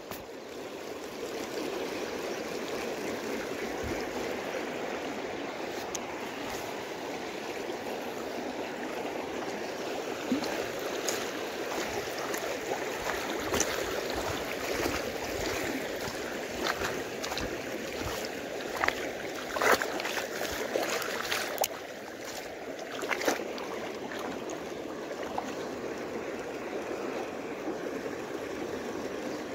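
Shallow creek water flowing and rippling over a stony bed: a steady rush with no break. It is joined by scattered light knocks and clicks through the middle stretch.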